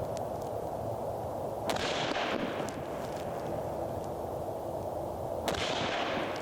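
Two rifle shots from a SIG Tread 716i semi-automatic .308 Winchester, about four seconds apart, each a sharp crack with a short ringing echo, fired with AAC 168 grain ammunition.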